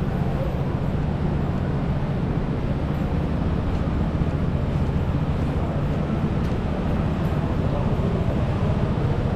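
Steady low rumble of road traffic on a busy avenue, unbroken and without distinct passes or horns.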